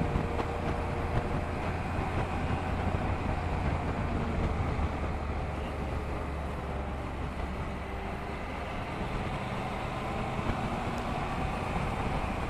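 Honda NC750X motorcycle's parallel-twin engine running steadily under way, mixed with a constant rush of wind and road noise.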